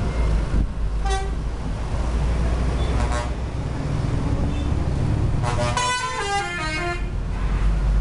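Telolet musical horn on a coach: a short toot about a second in, another a couple of seconds later, then several horn trumpets sounding together in a quick tune of stepping, falling notes for about a second and a half. A steady low bus engine rumble and passing traffic run underneath.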